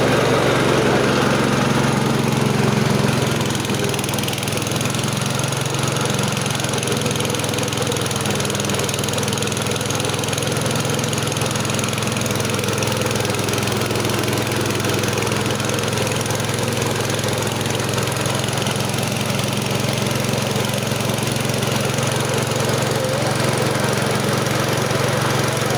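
Mini rice-milling machine (KD500 WG huller-polisher) driven by its small petrol engine, running steadily under load as rice is fed through it. The sound drops slightly about three seconds in.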